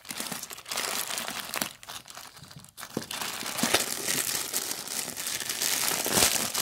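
Plastic mailer bag crinkling and crackling as hands crumple and pull at it, dropping quieter for about a second near the middle.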